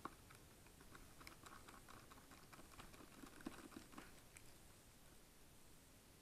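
Faint, irregular clicking and scratching of a screwdriver working the small screws out of a 2008 iMac's metal frame, with a sharper click right at the start; it dies away to near silence about two thirds of the way in.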